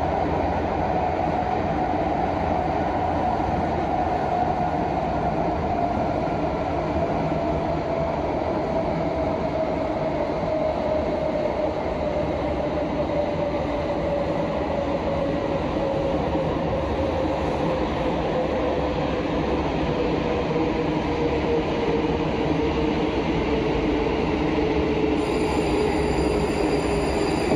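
Prague Metro train running through a tunnel: a steady rumble of wheels on rail, with a motor whine that slowly falls in pitch as the train slows toward a station. Near the end, thin high-pitched tones join in.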